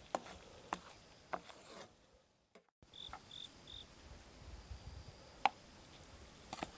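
Sparse sharp pops and crackles from a wood campfire, with three short high chirps of a cricket just after the middle.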